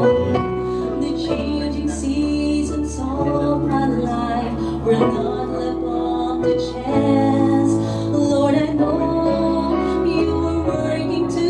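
Slow song music with instrumental accompaniment and sustained bass notes that change every second or two.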